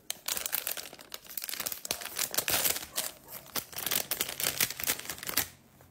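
A plastic packet being torn open and crinkled by hand: a dense run of rustling and ripping that stops shortly before the end.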